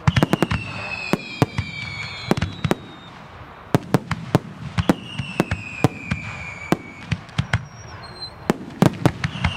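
Aerial fireworks display: rapid sharp bangs of bursting shells, mixed with three whistles that each fall in pitch over about two seconds, one at the start, one about five seconds in and one near the end.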